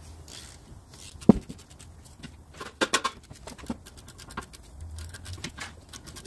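Brake caliper being handled on the hub: scattered metal clicks and rattles, with one sharp knock about a second in and a quick cluster of clicks near the middle.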